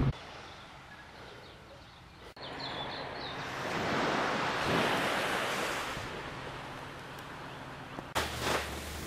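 Surf washing onto a sandy beach: a steady rush of waves that swells for a few seconds in the middle and eases off, with some wind on the microphone.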